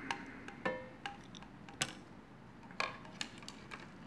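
Light, irregular clicks and taps of the opened plastic multimeter case being handled, about eight in all, the sharpest a little under two seconds in.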